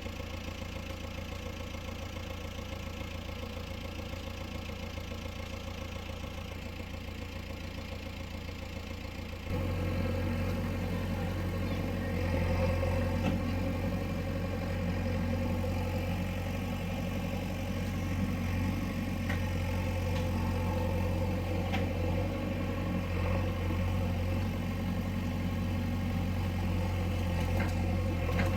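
Diesel engine of a JCB backhoe loader running steadily, with a constant low hum. About nine seconds in it suddenly becomes louder and stays that way.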